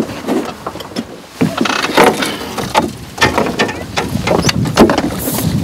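A run of knocks and clatters from a landing net and tackle being handled against the side of a small boat while a trout is netted.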